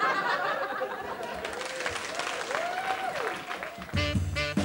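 Studio audience applauding, with a few cheering voices. About four seconds in, a swing-band tune with brass and a strong bass line starts.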